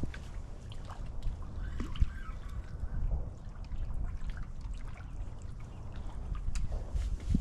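Wind rumbling on the microphone, with light water trickling and many scattered small clicks.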